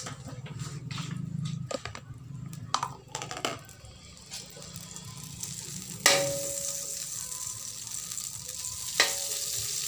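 Margarine melting in a wok, pushed around with a metal slotted spatula: scrapes and small clicks at first, then the spatula strikes the wok with a short ring about six seconds in and a steady sizzle sets in, with a second strike about three seconds later.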